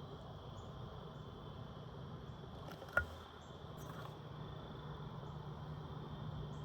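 Insects chirring steadily in the outdoor evening background, over a low steady hum, with one sharp click about three seconds in.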